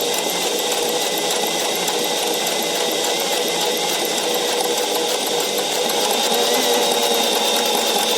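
Portable electric sewing machine running steadily, stitching a buttonhole, with an even motor whine throughout.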